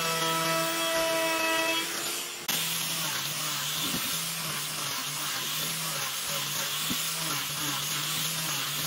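Makita router running as it trims the edge of a wooden table top, a steady high whine. About two and a half seconds in it cuts off abruptly to a steady hiss with a low wavering hum from a handheld disc sander running.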